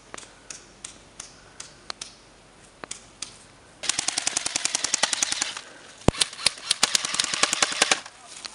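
Airsoft guns firing: single shots about every half-second, then from about four seconds in, rapid full-auto strings of roughly fifteen shots a second, in two bursts with a short break near the sixth second.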